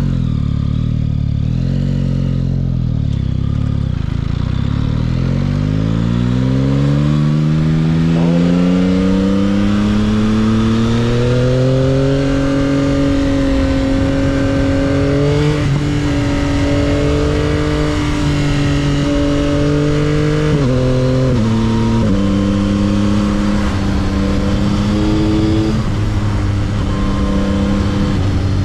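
A 2022 Yamaha XSR900's inline-three engine on its stock exhaust, heard from the rider's helmet. It runs low at first, then rises steadily in pitch for several seconds as the bike accelerates. It then holds steady, drops in pitch in two quick steps a little past halfway, and carries on at a steady pace.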